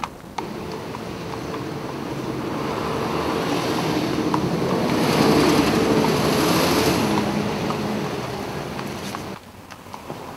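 Road traffic: a motor vehicle passing close by, its engine and tyre noise swelling to a peak about halfway through and then fading, until it cuts off suddenly near the end.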